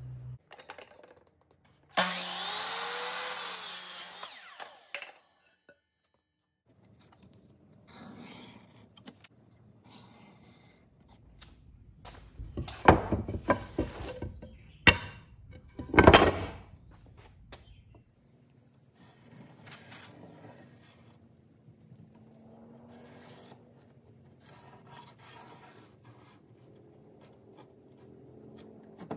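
Wood and a steel blade being handled on a wooden workbench: rubbing and scraping, with several loud knocks as pieces are set down about halfway through. Early on there is a loud rushing noise lasting about two seconds.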